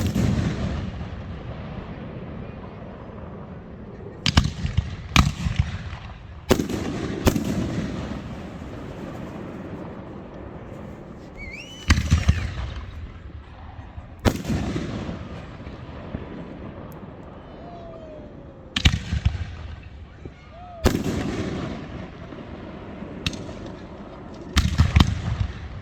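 Fireworks going off: about a dozen sharp bangs spaced every few seconds, each trailing off in a rolling echo, with a short rising whistle about halfway through.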